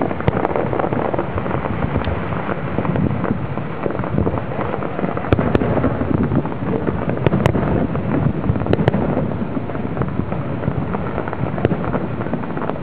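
Fireworks display: aerial shells launching and bursting in a continuous run of bangs and crackling, with a few sharper cracks about five to nine seconds in.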